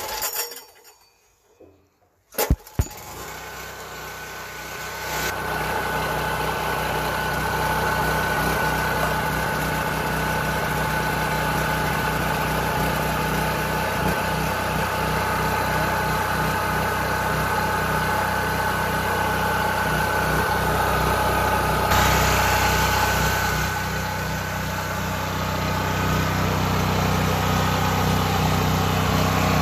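Westinghouse WGen5300 portable generator's single-cylinder gasoline engine being pull-started by its recoil cord. It catches about two and a half seconds in on its first startup, then settles into a steady run.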